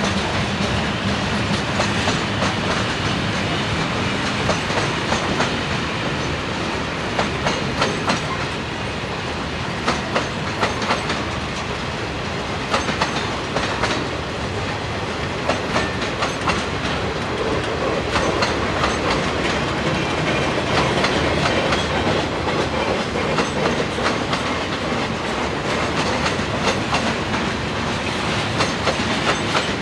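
Freight cars rolling past close by, their wheels clacking steadily over rail joints, with a low hum in the first few seconds that fades out.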